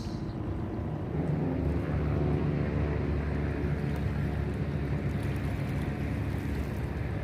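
An engine running steadily, a low hum that gets a little louder about a second in and then holds.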